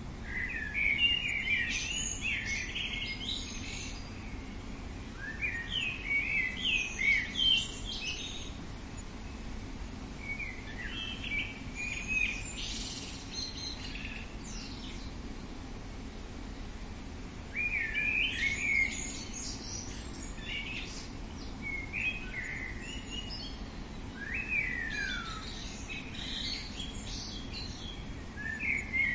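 Songbird song: phrases of quick chirps and short whistled slides every few seconds, over a steady low background noise.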